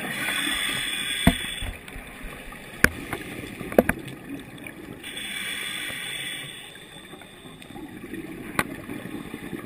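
Scuba divers' exhaled breath, heard underwater: two hissing bursts of regulator exhaust bubbles about five seconds apart, each lasting a second or two, over a low rumble. A few sharp clicks are heard through it.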